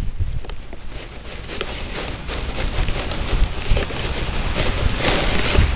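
Strong wind buffeting the microphone in gusts, with a steady high whine and a few scattered clicks over it.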